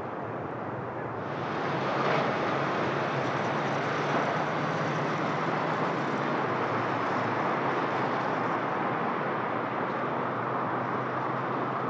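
Steady outdoor noise, an even hiss like road traffic, that grows louder about a second and a half in and then holds level.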